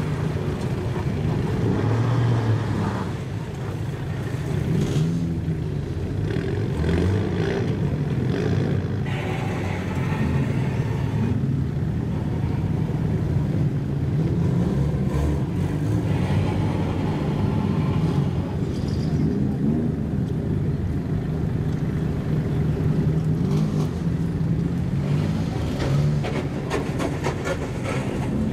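Engines and exhausts of lowered cars running at low speed as they creep along one after another, their low hum rising and falling in pitch with the throttle.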